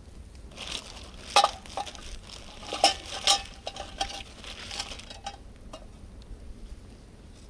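Metal camping cookware clinking and knocking as it is handled and set up for boiling coffee. A string of sharp knocks over about five seconds, some with a short metallic ring, the loudest about a second and a half and three seconds in.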